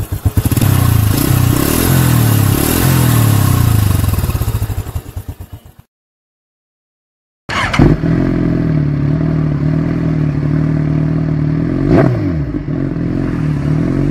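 A loud engine-like drone under the intro logo fades out about five seconds in. After a short silence, a Suzuki GSX-R1000's inline-four cuts in, idling through an Austin Racing slip-on exhaust, with a quick throttle blip about twelve seconds in and another starting at the very end.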